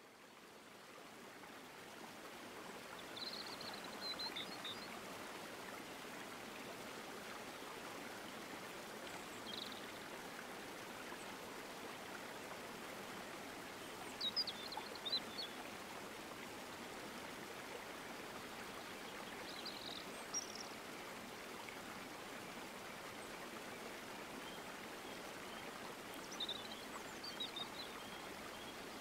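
Steady rushing of flowing water with five short bursts of high bird chirps, fading in over the first few seconds.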